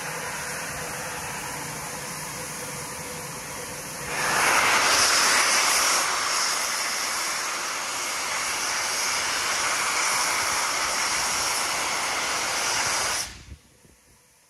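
Steam locomotive letting off steam: a quieter steady hiss gives way about four seconds in to a loud, steady jet-like hiss, which cuts off suddenly near the end.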